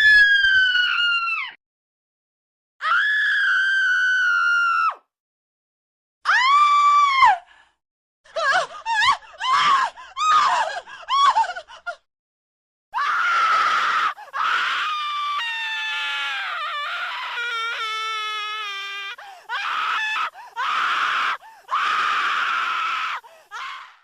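A series of women's screams, one after another with silent gaps: long high-pitched held screams, a burst of short shrieks, then longer yelling screams.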